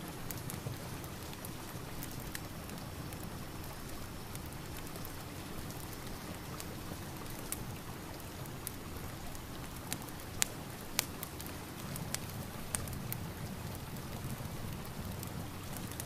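Steady rain with the scattered sharp crackles and pops of a fireplace fire; two louder pops come a little past the middle.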